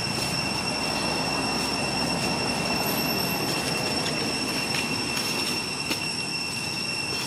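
Cicadas droning steadily on one high-pitched tone over a rushing background hiss.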